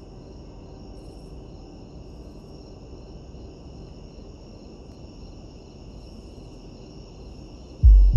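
Crickets chirring steadily. Near the end, a sudden deep, loud boom.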